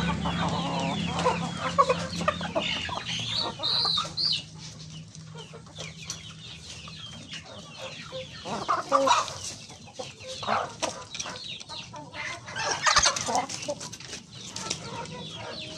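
A flock of Siamese chickens clucking as they crowd and peck at feed. Their calls are dense and overlapping for the first few seconds, then come in scattered short clucks, among many short sharp taps.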